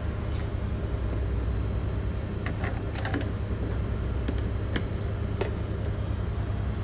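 Scattered light clicks and taps from handling a FURUNO ECDIS control unit, its keys and a USB memory stick being plugged in, over a steady low hum.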